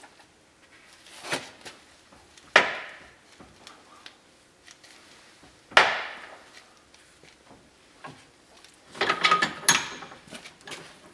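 Metal knocks while a new U-joint is worked into a Dana 44 axle shaft yoke held in a steel bench vise: two sharp knocks with a short ring, about three seconds apart, then a quick run of clanks near the end as the vise handle is turned.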